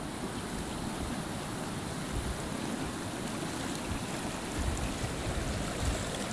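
A fast, shallow mountain stream rushing over rocks: a steady, unbroken rush of water.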